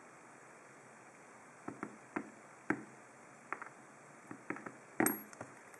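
Small metal parts of a disassembled ABUS 34/55 padlock clicking and clinking as they are handled: about ten light taps, the loudest one about five seconds in with a short metallic ping.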